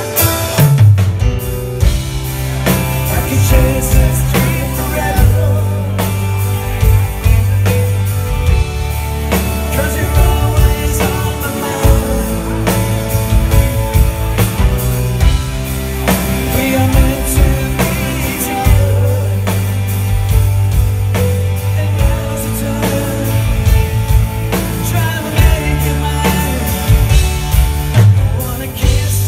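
Live rock band playing through a concert hall PA: drum kit keeping a steady beat, electric bass and electric guitar in a passage with no lead vocals.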